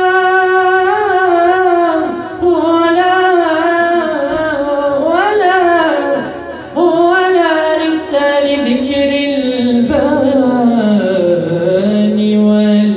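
A man singing a Sufi madih praise song solo into a microphone, drawing out long melismatic notes that slide and ornament between pitches, with short breaths between phrases and a long low held note near the end.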